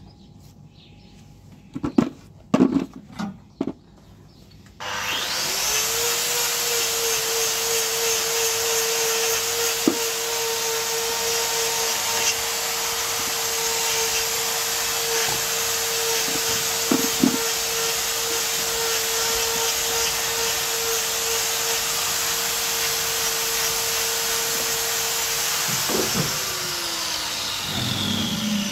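A few handling knocks, then an electric power tool starts about five seconds in, runs steadily with a high hum and hiss for about twenty seconds, and is switched off near the end, its pitch falling as it winds down.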